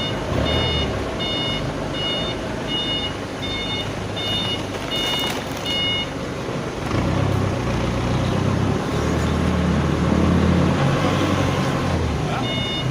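A vehicle's reversing alarm beeping about twice a second over its running engine. The beeping stops about halfway through while the engine sound grows louder, and the beeping starts again near the end.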